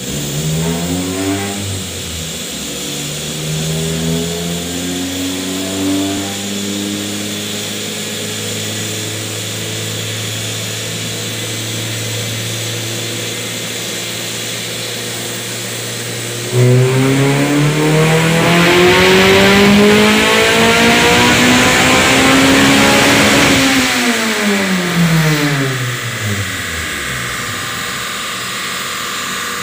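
Honda B20 four-cylinder engine in a Civic on a chassis dyno, being tuned with a Hondata S300. Its pitch climbs in steps through the gears over the first several seconds and then holds steady. About halfway in it goes to a sudden, louder full-throttle pull, its pitch rising smoothly for about seven seconds before easing off and falling back.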